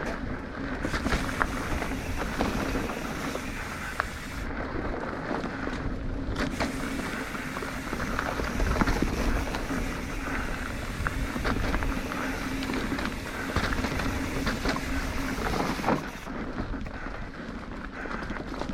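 Mountain bike riding along a loose dirt trail: tyres rolling over dirt and rocks with frequent clicks and rattles from the bike, and wind noise on the microphone.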